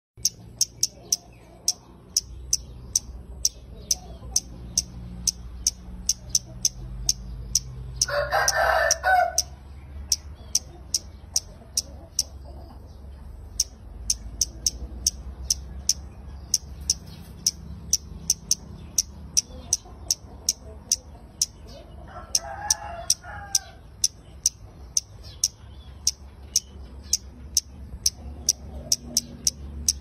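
Caged kemade kepala merah calling without pause: a fast string of short, sharp, high chips, about three a second. A rooster crows twice over it, about a third of the way in and again about three quarters of the way in.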